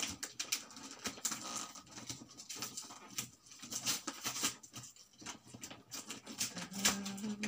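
Crinkling and crackling of gift wrapping as a small package is handled and picked open by hand, many small irregular crackles. Near the end a short hum from a man's voice begins.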